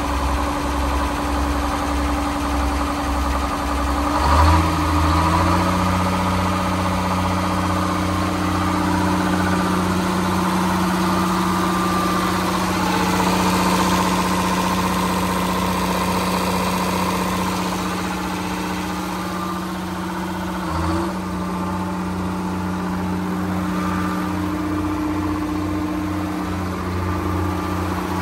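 Detroit Diesel 6-71 two-stroke inline-six diesel engine on an industrial power unit running steadily. About four seconds in it speeds up and then holds the higher speed, with a brief blip about 21 seconds in.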